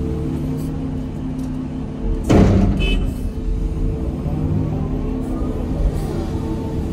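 Excavator's diesel engine running steadily, heard from inside the cab, while the machine dumps a bucket of dirt into a dump truck. About two seconds in comes a loud crash as the load lands in the truck's steel bed. Near the end a faint rising hydraulic whine as the machine swings away.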